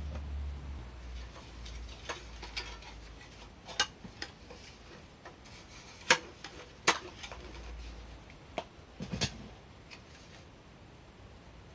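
Scattered light metallic clicks and clinks from the thin titanium panels of a POMOLY T-BRICK Mini tent stove being handled, with two sharper clinks midway and a quick cluster of knocks near the end.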